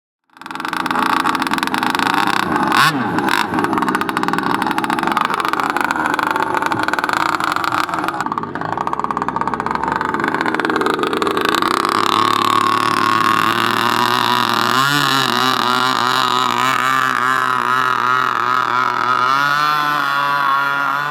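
Gasoline engine of a large radio-controlled model boat running at speed, its pitch wavering up and down. It starts abruptly and stays loud throughout.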